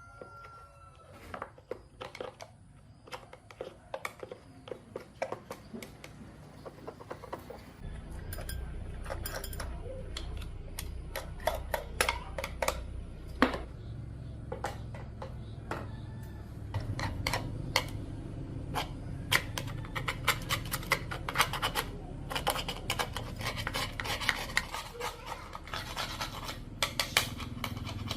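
Metal parts and hand tools clicking, clinking and scraping against each other during hands-on work on an old chainsaw. A steady low hum joins in about 8 seconds in and gets louder partway through.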